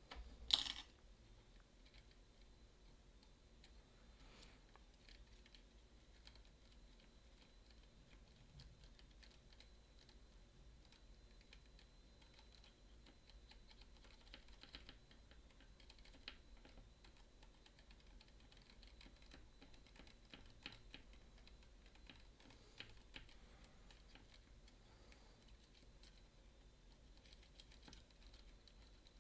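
Faint, scattered small clicks and scrapes of lock-picking tools working inside a MIWA magnetic camlock, with one louder click about half a second in.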